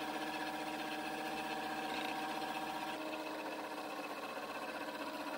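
Vertical milling machine cutting a 6061 aluminium block, its spindle and end mill running at a steady whine. The whine changes about three seconds in as another pass begins.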